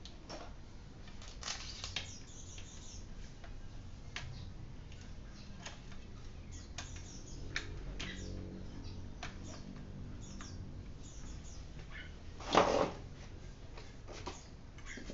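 Scattered light clicks and taps from hands and tools working on a bicycle wheel in a truing stand during spoke truing, with one louder knock about three-quarters of the way through.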